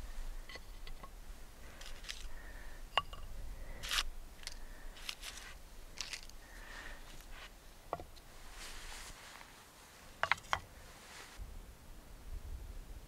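Wooden bow drill kit pieces (fireboard, spindle and bark socket) set down and shifted on a flat stone by hand: scattered light wooden knocks and clicks with some rustling, including a quick run of clicks about ten seconds in.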